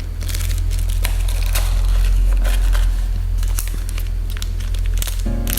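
Plastic packaging being handled and crinkled, with irregular crackles, over a steady low hum.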